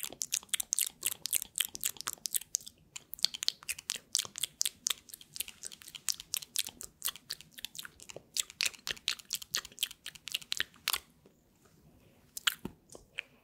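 Gum being chewed right at the microphone: quick, wet clicking and smacking mouth sounds, which stop for about a second near the end and then start again.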